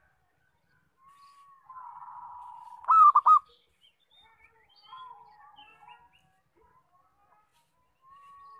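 Zebra dove (perkutut) cooing: a soft rolling coo that ends in three loud clipped notes about three seconds in. A new coo begins near the end.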